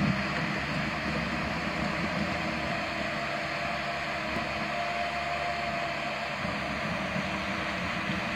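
Amphibious rubber-tracked tractor's engine running steadily.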